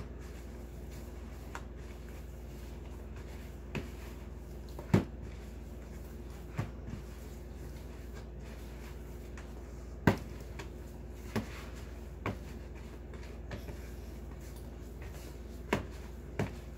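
Clear plastic mixing bowl knocking and tapping against a wooden table, and a spoon against its side, as playdough is mixed and kneaded by hand: about eight sharp knocks at irregular intervals over a steady low hum.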